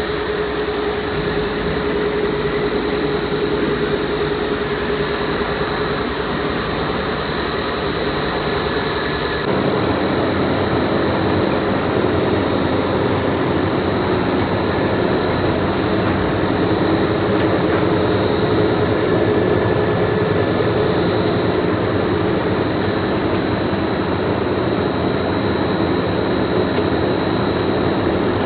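Factory machinery running steadily, with a high whine held throughout over a lower hum and a busy mechanical noise. The sound changes abruptly about nine seconds in, the low hum giving way to a different, denser machine noise.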